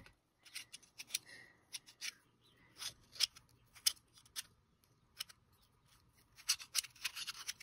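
Magnetic slider fidget toy being slid back and forth, its magnetic pieces clicking as they snap into place: irregular sharp clicks, with a quick run of them near the end.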